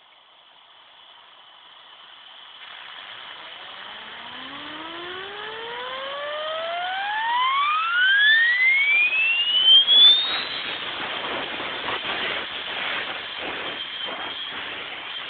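Yuasa 525-200 jig grinder's high-speed spindle spinning up: a hiss builds, then a whine rises steadily in pitch from about four seconds in until about ten seconds in. After that it runs at speed with a steady high hiss and some flutter.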